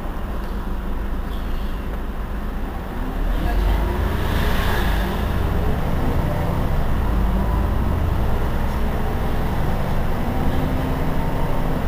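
Heuliez GX 327 city bus's rear engine idling while standing at a stop; it gets louder about three seconds in and keeps running steadily, with a short hiss of air around four seconds.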